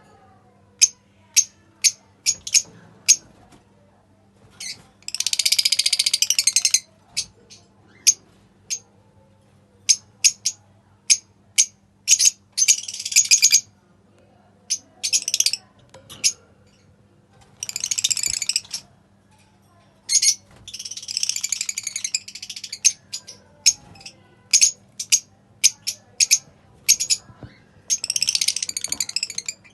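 Lovebirds chirping: many short, sharp, high chirps, broken several times by a second or two of rapid continuous chattering.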